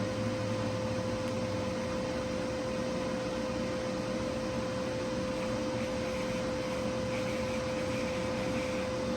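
TIG welding arc from a WeldPro TIG 200 on stainless steel, a steady hiss with a constant hum; a lower hum drops away about two seconds in.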